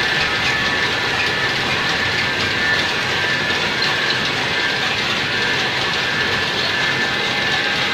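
Roller printing machine for PVC shrink plastic film running steadily: a continuous mechanical noise of turning rollers and drive gear with a thin high tone through it.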